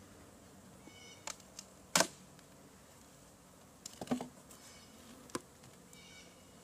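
Scattered sharp clicks and knocks of wooden beehive frames and boxes being handled, the loudest about two seconds in, over a faint hum of bees.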